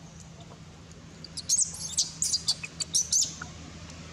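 A quick run of a dozen or so sharp, high-pitched chirps starting about a second in and stopping about two seconds later, over a steady low hum.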